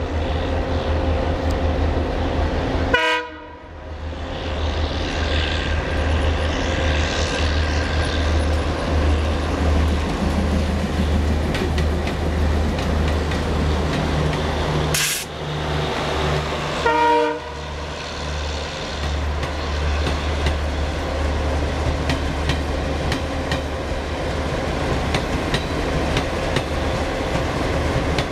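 ALCO-built Indian Railways diesel locomotives (a WDM-3A and a WDG-3A) with their engines running, a steady low rumble as one train draws past the other. A locomotive horn sounds two short blasts, one about three seconds in and one a little past the middle.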